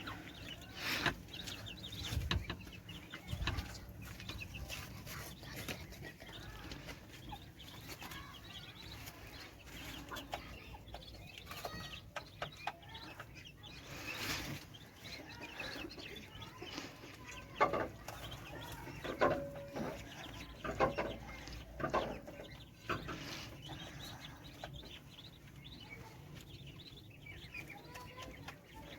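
Backyard poultry clucking and calling at feeding time: many short calls scattered throughout, more of them together about two-thirds of the way through.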